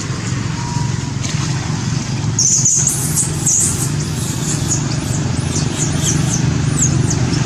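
Steady low rumble like passing traffic, with a run of many short, high-pitched, falling chirps and squeaks starting a little over two seconds in.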